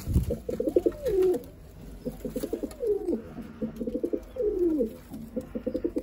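Domestic pigeons cooing: a repeated coo phrase, a quick run of throbbing notes that ends in a falling note, heard several times.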